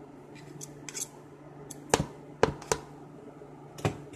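Metal spoon and fork clinking against a bowl while scooping dumpling dough, with four sharp clinks in the second half.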